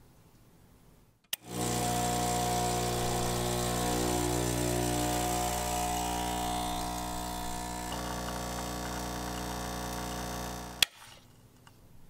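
Gaggia Classic espresso machine's vibratory pump buzzing steadily for about nine seconds while pulling an espresso shot, easing a little toward the end. A sharp click sounds as it switches on and again as it stops.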